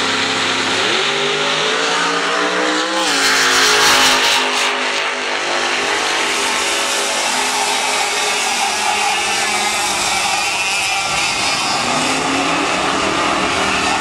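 Several Leopard racing karts' 100cc two-stroke engines racing. Their pitch rises as they accelerate out of a corner, and the sound is loudest about three to five seconds in as karts pass close. It then settles into a steady high drone and rises again near the end.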